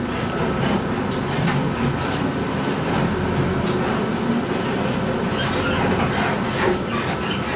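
Cabin noise inside a Transjakarta Mini Trans city bus setting off: a steady engine and road rumble with a few sharp rattles from the body and fittings.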